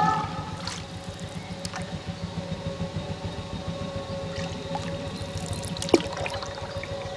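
Experimental electronic music: a single held drone tone over a fast, low pulsing hum, sprinkled with small crackles and clicks, and one sharp click about six seconds in.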